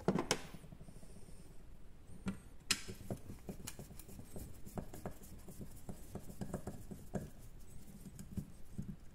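Hand screwdriver turning a screw into a block of wood: an uneven series of short creaks and clicks as the screw bites in. A couple of sharp knocks near the start come from tools being handled on a plastic case.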